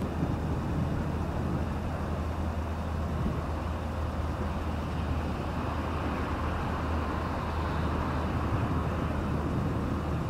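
A vehicle engine running steadily: a low hum under an even hiss.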